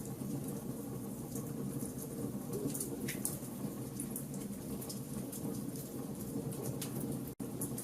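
Wood fire burning in a fireplace: scattered sharp crackles and pops over a steady low rush of flames. The sound cuts out for an instant near the end.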